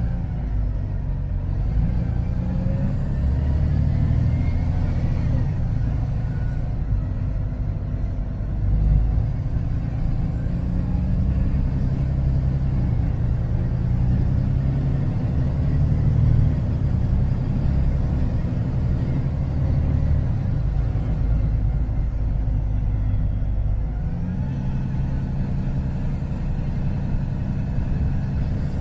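Diesel engine of a T360 concrete agitator truck heard from inside the cab while driving slowly, a steady low drone whose pitch steps up and down as the truck changes speed.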